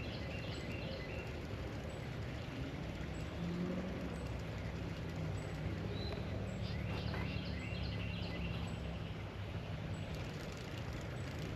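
Birds chirping in short calls over steady outdoor background noise, with a low steady drone in the middle few seconds.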